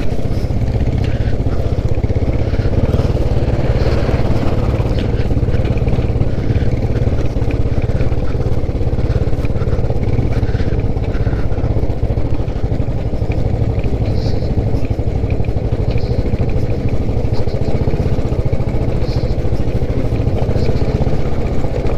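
Royal Enfield motorcycle engine running steadily while the bike rides slowly over rough, rocky off-road ground, with a few faint light ticks and rattles over it.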